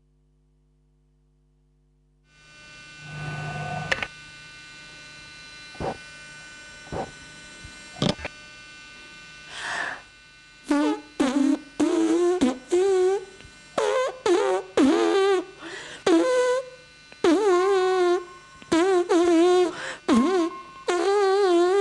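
A woman singing unaccompanied from about halfway in, in held notes with a wobbling vibrato. Before that, after a moment of near silence, a steady hum with a few scattered clicks and knocks.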